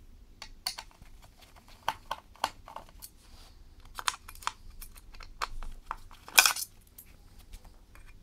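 Small screwdriver working screws out of a kitchen scale's metal plate and plastic housing: a run of irregular light clicks and ticks of metal on metal and plastic, with a louder clatter about six seconds in.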